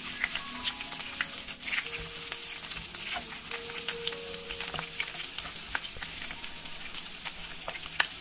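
Wedges of water bamboo sizzling in hot oil in a nonstick frying pan, a steady hiss with frequent crackling pops, as a wooden spatula stirs and turns them.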